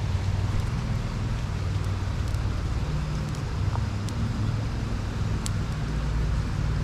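Steady low outdoor rumble with a few faint, sharp clicks scattered through it.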